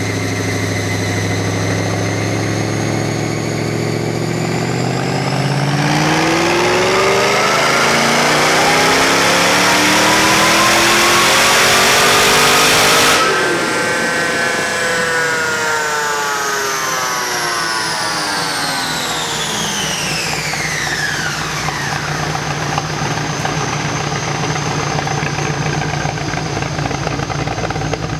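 Boosted Pontiac GTO V8 on a chassis dyno making a wide-open-throttle pull: idling, then engine pitch rising steadily for about seven seconds as it gets louder, the throttle shutting sharply about halfway through. The engine and a high whine then wind down in falling pitch over several seconds back to a steady idle.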